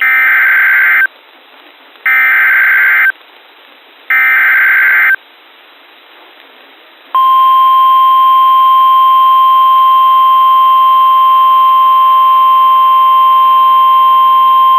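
NOAA Weather Radio Emergency Alert System signal: the SAME header's three short bursts of screeching data tones, each about a second long and a second apart, then the steady Weather Radio warning alarm tone starting about seven seconds in, announcing a flash flood warning.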